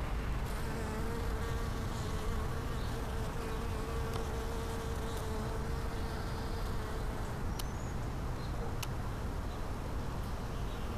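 Flying insects buzzing around a flowering shrub: a steady hum that fades out about seven seconds in, over a constant low rumble.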